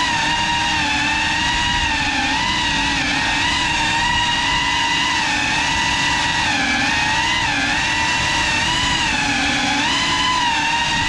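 GEPRC Cinelog 35 ducted cinewhoop's brushless motors and propellers whining steadily, the pitch wavering up and down as the throttle changes.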